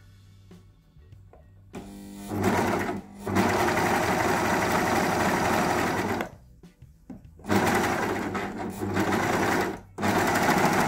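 Singer S0235 serger (overlocker) running on its first test run, stitching a four-thread overlock seam and trimming the fabric edge. It starts about two seconds in and runs in bursts of a few seconds with short stops in between.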